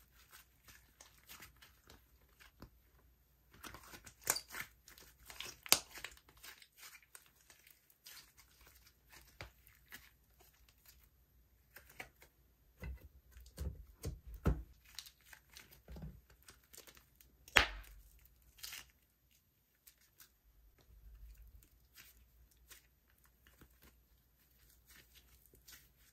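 Slime being worked by hand, with irregular sticky crackles and small pops; the sharpest pops come about four to six seconds in and again just past the middle, with a few soft low thumps shortly before.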